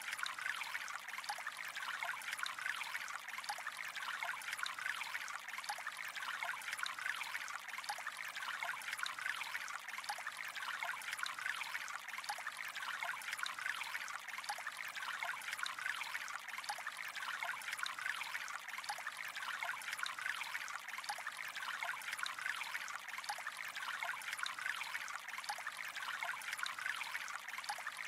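Gentle flowing water, trickling steadily and evenly with small splashes and burbles.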